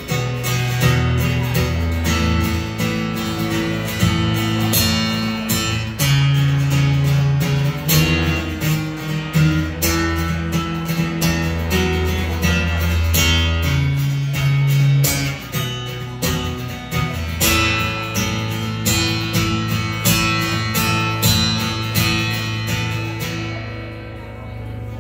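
Solo acoustic guitar strummed hard in an instrumental break, full chords ringing over sustained low bass notes. The strumming softens and thins out near the end.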